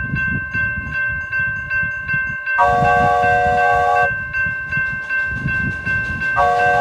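Railroad crossing bell ringing steadily, about two and a half strikes a second, while a train blows a chord of several notes twice: a blast of about a second and a half a little over a third of the way in, and another starting near the end.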